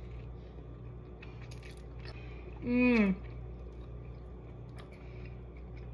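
A woman chewing a bite of avocado toast, with one short voiced 'mmm' about three seconds in, falling in pitch, over a steady low hum.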